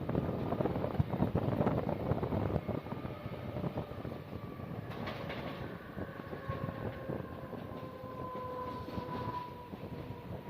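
Mumbai suburban local train running on the rails, a dense rattle that is loudest for the first couple of seconds and then steadier. From about halfway a thin whine slowly falls in pitch.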